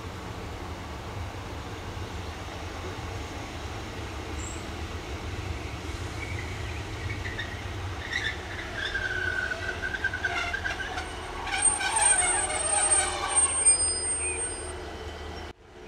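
Diesel multiple unit train running on the line: a steady low engine and rail rumble, joined after a few seconds by wavering, squealing wheel tones and a run of clicks from the wheels over the rails, loudest about three-quarters of the way in. The sound cuts off abruptly just before the end.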